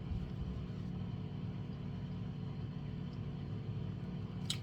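Steady low hum of a microwave oven running while it cooks a cup of instant ramen noodles, with a faint click near the end.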